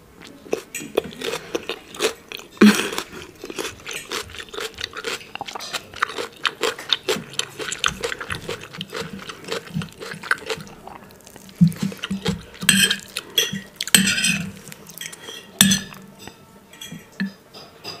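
Metal knife and fork cutting meatloaf and clicking and scraping against a ceramic plate, in quick irregular taps, louder for a few seconds in the second half.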